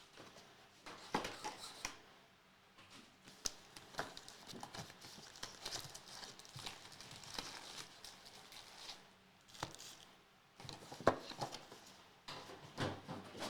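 Trading-card boxes and packs being handled and opened: plastic wrapping crinkling and tearing, with irregular light taps and clicks on the table.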